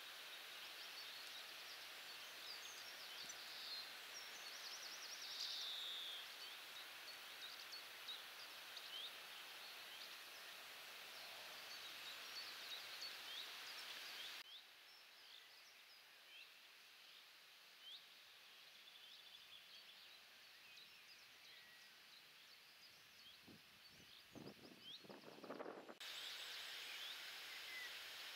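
Faint outdoor ambience with wild birds chirping and calling in short, high notes throughout. The background hiss drops suddenly about fourteen seconds in. A few soft low thumps and a rustle come near the end.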